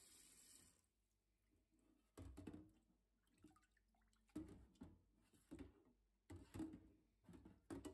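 Tap water running into a stainless steel sink, shut off about a second in. Then several faint, irregular knocks and splashes as a wet axe head is moved about in the sink.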